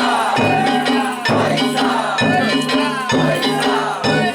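Danjiri festival music: a drum beating about once a second under rapid clanging of small hand gongs.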